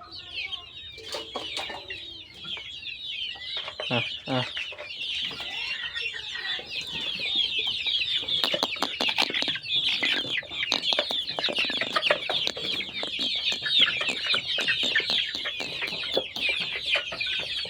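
A flock of local chickens calling all at once: a dense, continuous chorus of many short, high peeps and clucks that grows fuller after a few seconds, with scattered sharp clicks.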